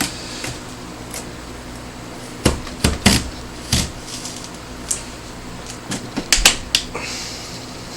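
A hand-operated French fry potato chopper is forced down through a potato, giving a string of irregular knocks and clanks. The loudest come about three seconds in and again near six and a half seconds. Its metal handle bends under the force.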